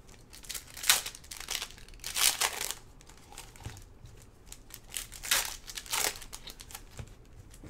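Foil wrappers of trading-card packs crinkling and tearing as the packs are ripped open and handled, in several sharp rustles about a second in, near the middle and again near the end.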